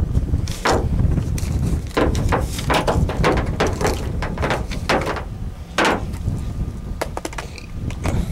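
Strong wind buffeting the microphone with a steady low rumble, broken by a series of irregular sharp knocks and clicks.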